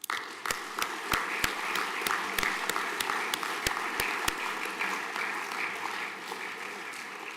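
Audience applause: many people clapping, starting all at once and slowly fading toward the end.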